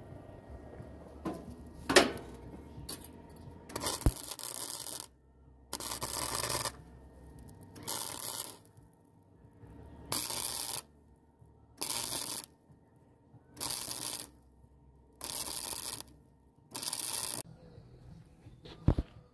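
MIG welder laying a row of short stitch welds on a floor pan: about eight bursts of crackling, each about a second long, with a pause between each. A sharp knock comes about two seconds in.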